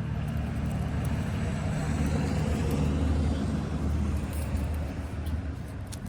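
A motor vehicle's engine running with a low rumble that grows louder towards the middle and eases off near the end, as if driving past.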